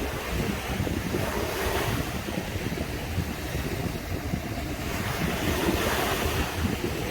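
Sea surf washing onto a beach, with two waves swelling up about two seconds and six seconds in, over a steady low rumble of wind on the microphone.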